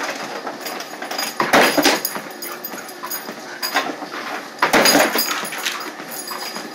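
A German Shepherd making two short noisy sounds about three seconds apart while playing with her toy.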